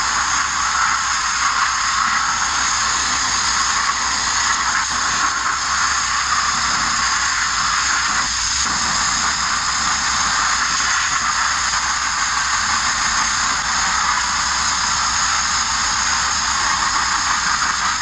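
Abrasive media blasting on the front end of a Mk1 Ford Transit van body: the blast nozzle's air-and-grit stream makes a steady, loud hiss that runs on without a break.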